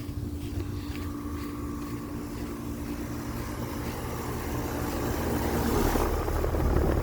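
Outdoor condenser unit of a Carrier Comfort central air conditioner with a Copeland scroll compressor, running with a steady hum and low rumble. A broad rushing noise swells near the end.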